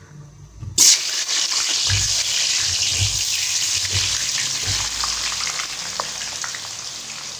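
Thin potato slices, still wet from an ice-water soak, dropped by hand into hot ghee in a kadhai: a sudden loud sizzle breaks out about a second in and goes on as steady frying, slowly easing off. There are a few soft knocks of handling along the way.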